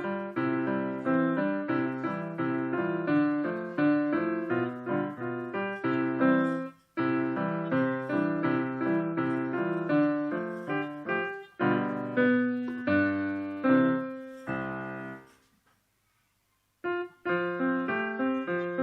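Solo piano playing a lively run of notes, with a brief break about seven seconds in. Near the end a held chord dies away, there is about a second and a half of silence, and then the playing starts again.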